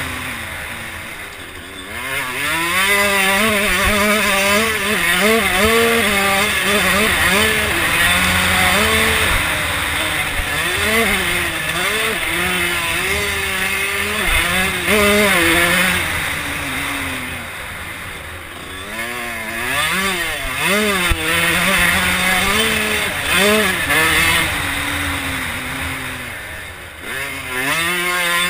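Motocross bike engine at full race pace heard from on the bike, revs climbing and falling again and again as it accelerates and shifts, with the throttle eased off briefly a few times before it picks up again.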